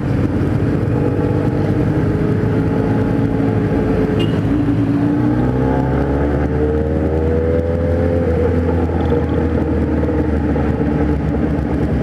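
Motorcycle engines running steadily while riding in a group, with wind noise on the microphone. About five seconds in, an engine note rises and then falls again as the throttle is opened and eased.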